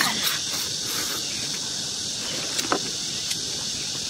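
A few short slurps and sucks as snail meat is sucked out of the shells, over a steady high-pitched chorus of insects.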